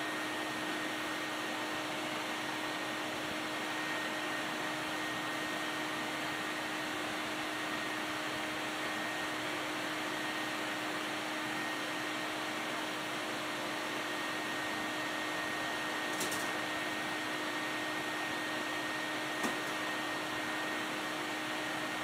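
Vintage Electrolux Ultralux XL vacuum cleaner running steadily, a constant motor hum with a high whine, as its dusting brush on the hose works over a wooden cabinet. Two light taps are heard near the end.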